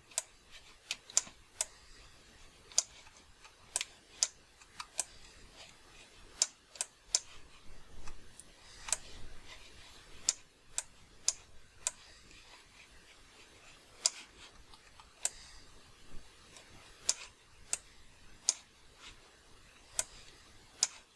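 Sharp, scattered clicks of a computer mouse and keyboard, irregular, about one or two a second, as a 3D model is sculpted on screen.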